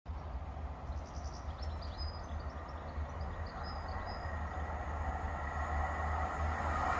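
Approaching pair of diesel multiple units, a Class 158 and a Class 156, growing steadily louder as they near, with a faint steady rail tone. A small bird chirps a few times in the first half.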